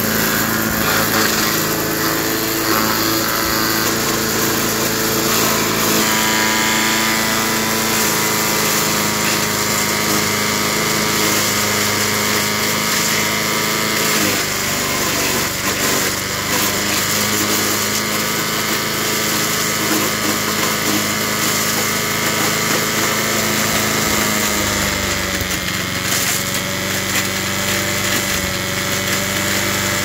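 A 1991 MTD 8 hp chipper/shredder running, its Tecumseh HM80 single-cylinder engine holding a steady note while branches are fed through it. The engine note sags briefly about halfway through and settles slightly lower near the end.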